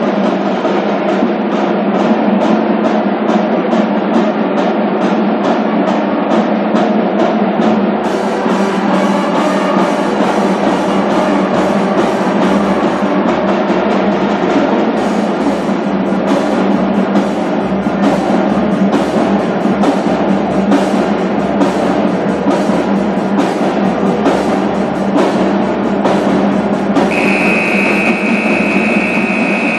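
Loud music driven by drums and percussion, with a steady beat. Near the end a high steady tone is held for a couple of seconds.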